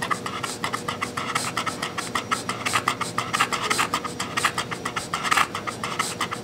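English bulldog panting rapidly: a fast train of short, breathy in-and-out strokes.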